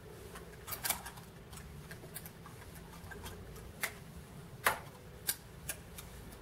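Clothes hangers clacking against a rail as shirts are slid along a clothing rack: a handful of irregular sharp clicks, the loudest a little after the middle, over a low steady shop hum.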